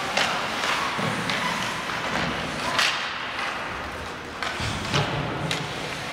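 Hockey play on the ice: about six sharp knocks and thuds of sticks and puck, scattered irregularly, the loudest about three and five seconds in.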